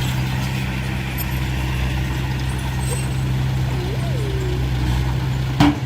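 A heavy construction machine's diesel engine running steadily at a constant speed, with a brief sharp knock near the end.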